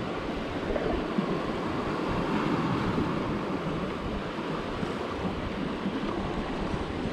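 Steady wash of sea water against shoreline rocks, with some wind buffeting the microphone.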